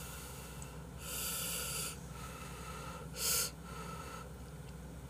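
A person's heavy breaths at the microphone while eating: a long, airy exhale about a second in, then a shorter, louder one just after three seconds.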